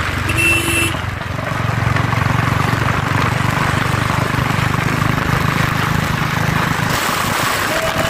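Motorcycle engine running steadily while riding on the road, with a short beep about half a second in.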